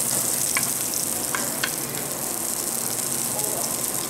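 Bluefin tuna steaks searing in a hot pan: a steady sizzle with a few small sharp pops.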